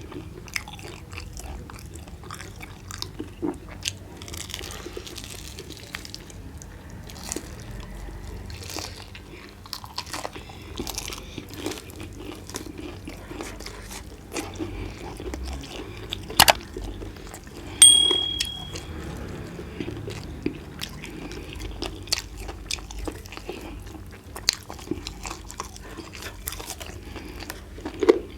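Close-up chewing and crunching of roast chicken, with many small wet clicks and smacks. About two-thirds in there is a sharp knock, then a short high ringing clink.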